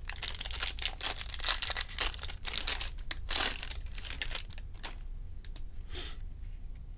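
Foil wrapper of a Topps baseball card jumbo pack crinkling and tearing as it is ripped open by hand, dense for the first three or four seconds, then a few lighter rustles and clicks as the stack of cards is handled.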